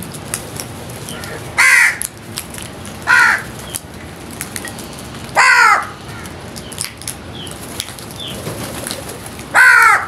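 House crows cawing: four loud, harsh caws, each falling in pitch, spaced a second and a half to four seconds apart, with faint tapping of beaks pecking food on concrete in between.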